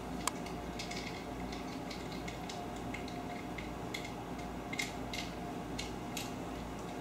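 Small metal parts of a shower-door bar-support fitting clicking and clinking as they are taken apart by hand, in scattered light clicks over a low steady hum.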